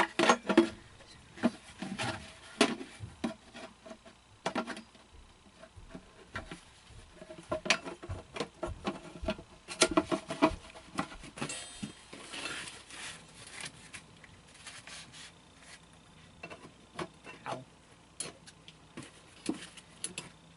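Irregular clicks, knocks and rubbing of parts being handled and fitted together: the feet and poles of an animatronic's stand being assembled.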